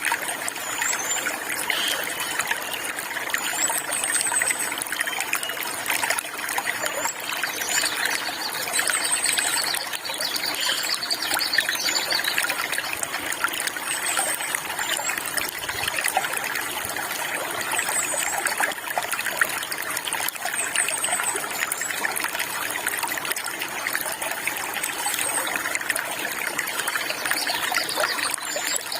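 Water trickling and splashing steadily over stones, with short high bird chirps every few seconds.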